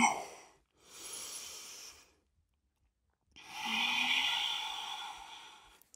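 A person breathing slowly: a soft inhale about a second in, a pause, then a longer, louder exhale starting about halfway through. The exhale has a brief voiced, sigh-like start and trails off.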